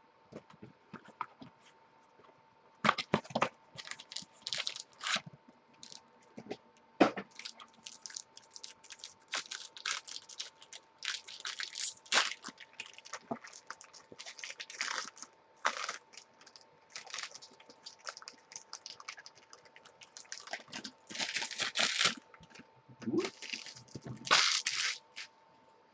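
A trading-card hobby box and its packs being torn open and handled: irregular crackling, tearing and rustling of wrapping and cardboard, busiest near the end.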